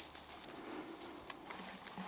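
Golden retriever puppies scuffling in dry grass and twigs: scattered rustles and small crackles.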